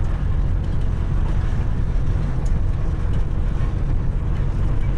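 Inside the cab of a truck driving slowly on a cobblestone road: a steady low diesel engine rumble mixed with the noise of the tyres on the cobbles.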